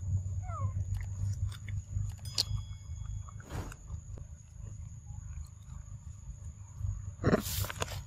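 A macaque chewing papaya with scattered wet mouth clicks. Under it runs a steady low rumble and a constant high whine, and a brief, louder noise comes near the end.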